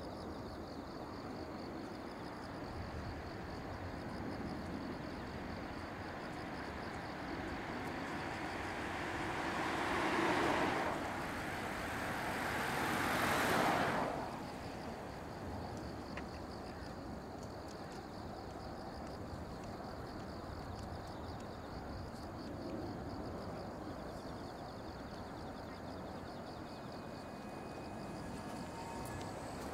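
Distant climbing Boeing 747-8F freighter: a steady far-off jet rumble from its four GEnx engines, under a faint high insect chirring. About ten and thirteen seconds in, two louder rushing swells of road-vehicle noise pass, the second cutting off sharply.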